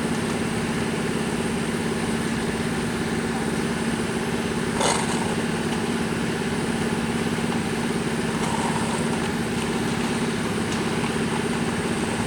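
Steady engine-like machine drone with a constant low hum, and one short sharp knock or clink about five seconds in.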